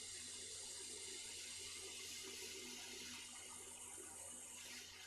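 Hot air rework station blowing a steady hiss of hot air, reflowing solder paste under a small component on a circuit board.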